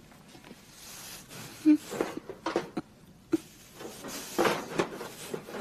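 A string of short knocks and clatters, as of the iron door and pans of a wood-burning kitchen stove being handled. The loudest comes about a second and a half in, and a cluster follows a little past four seconds.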